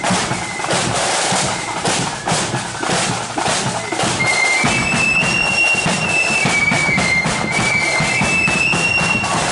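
Marching flute band playing: drums beat a steady march rhythm, and about halfway through the flutes come in with a high, shrill melody over them.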